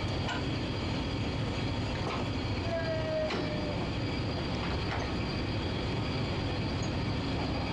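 Party boat's engines idling: a steady low rumble. A brief squeak comes about three seconds in, and a few light knocks follow.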